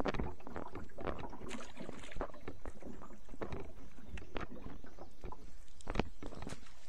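Water splashing and knocking against a small boat's hull, in irregular short strokes over a low rumble.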